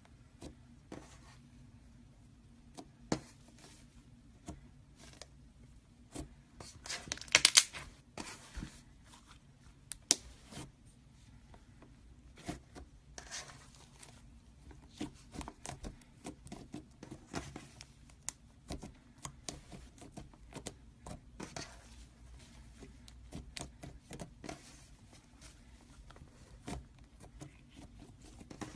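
White slime being kneaded, folded and pressed by hand, giving off scattered sticky clicks and small pops. A louder burst of crackling comes about seven seconds in, with one sharp click soon after.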